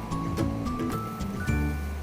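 Background music: a run of short plucked notes, then a low note held from about three-quarters of the way in.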